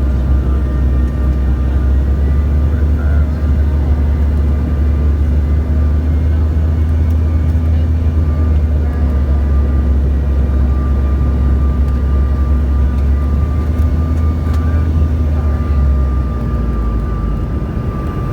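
Loud cabin noise of a CRJ-550 regional jet: a deep steady rumble from the rear-mounted jet engines and airflow, with a thin steady whine above it. The rumble eases about 16 seconds in.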